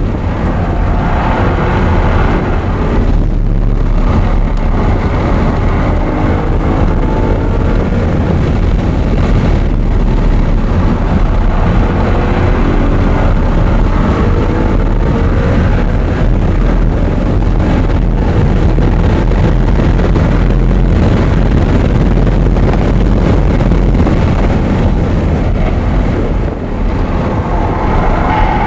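Audi R8's V8 engine accelerating hard at full track pace, its pitch climbing through each gear and dropping at the shifts, over a steady rumble of road and wind noise.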